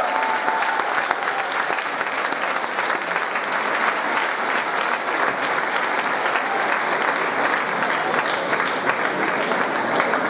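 Audience applauding steadily, with a few voices calling out briefly near the start.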